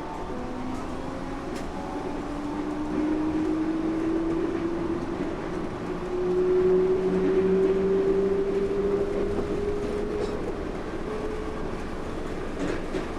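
Yurikamome rubber-tyred automated guideway train heard from inside the car while running between stations: a steady rumble, with a motor whine that rises slowly in pitch as the train gathers speed. It is loudest a little past the middle and fades near the end.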